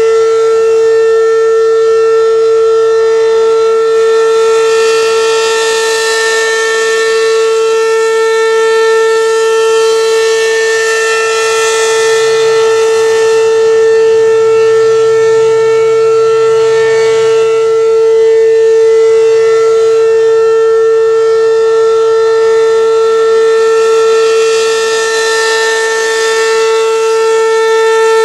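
American Signal RM-127 outdoor warning siren sounding a steady alert: one loud, unwavering tone with rich overtones. The sound swells brighter about every six to seven seconds as the rotating head sweeps past.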